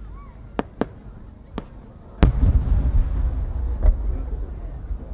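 A large aerial firework shell bursts with a loud boom about two seconds in, followed by a long low rumble rolling on. A few sharp pops come before the boom, and another near the end.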